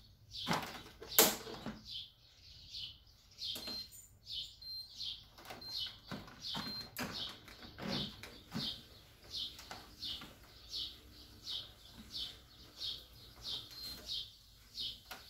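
Footsteps of a person walking on a BAAM-001A electric treadmill at speed 5: a regular swish and soft thud of shoes on the moving belt, about one and a half steps a second. A few heavier knocks come in the first two seconds.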